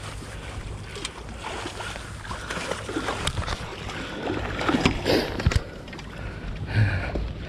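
Wind rumbling on the microphone, with irregular knocks and scrapes of fishing gear and a landing net as a chum salmon is brought up onto the breakwater.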